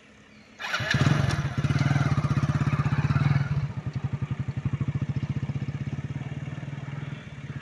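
An engine running close by: it comes in abruptly about half a second in, runs loudly for about three seconds, then settles to a quieter, steady, evenly pulsing run of about ten beats a second.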